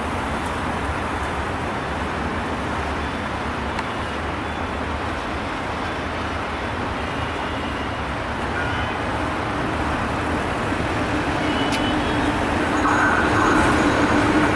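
A steady rushing outdoor rumble, then a diesel-electric locomotive approaching along the track. Its engine drone grows louder from about ten seconds in.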